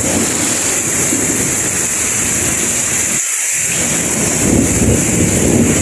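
Heavy rain pouring steadily, with a low rolling rumble of thunder underneath.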